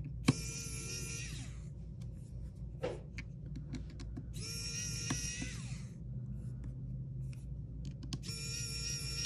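Electric precision screwdriver whirring in three short runs of about a second each, its pitch dropping as each run stops, as it drives out the tiny screws of an iPhone 6's internal bracket. A sharp click sounds near the start.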